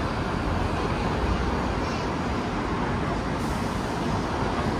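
Hong Kong double-decker tram running along the street, heard from the upper deck with the windows open: a steady low rumble mixed with road traffic noise.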